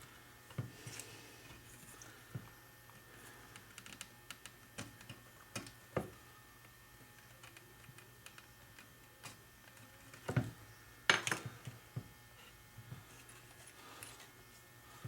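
Scattered light clicks and taps of small hard objects being handled, with a louder clatter of knocks about ten to eleven seconds in.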